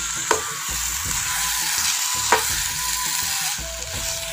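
Thick chickpea-and-vegetable curry sizzling and bubbling in a non-stick pan while a spatula stirs it, clicking against the pan twice. The curry is simmering down so its remaining water cooks off.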